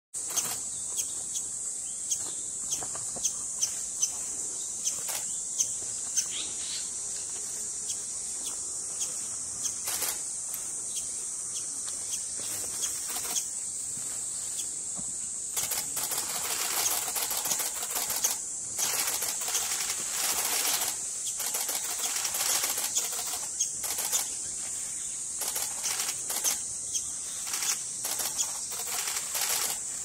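Japanese paradise flycatcher nestlings and the adult female calling back and forth at the nest: short sharp calls in the first half, then a dense run of harsh calls from about halfway, as she arrives to feed them. Under it all is a steady high-pitched insect drone.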